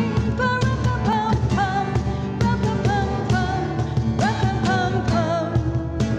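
A woman singing a Christmas carol while strumming a Takamine acoustic guitar, her voice holding a melody over regular strums.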